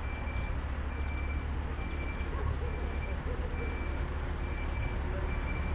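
AUSA road-rail dumper's diesel engine running steadily as it travels on rails, under its warning beeper sounding a high beep about once a second.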